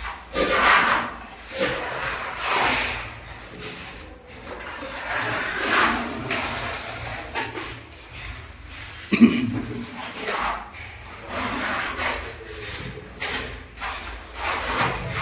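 Steel putty knife scraping and spreading wall putty over plaster in a series of swishing strokes, about one a second, with a single sharp knock about two-thirds of the way through.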